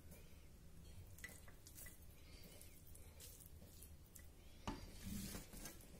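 Mostly near silence, with faint scrapes and taps of a flat spatula scooping cooked rice pulao out of a pan onto a plate. One sharper tap comes a little before the five-second mark.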